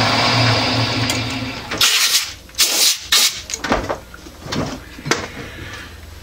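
Old metal lathe running with a steady hum, shut off about two seconds in. Then a run of separate clunks and knocks as the machine is handled.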